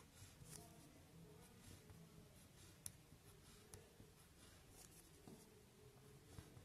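Faint scratching of a pen on paper: short separate strokes as a row of small vertical lines is drawn.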